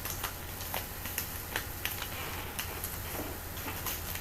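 A foil trading-card pack being opened and the cards handled: scattered light crinkles and clicks, with a stretch of rustling about two seconds in, over a steady low hum.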